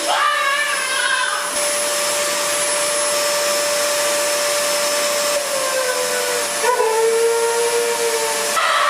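A motor-driven blower running steadily, a loud rushing hiss with a steady whine that dips and slides in pitch about six seconds in, then settles again.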